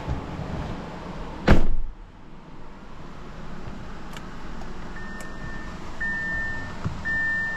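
A single loud thump about a second and a half in, like the Audi Q7's car door being shut, then from about five seconds in the dashboard warning chime beeping steadily, about once a second.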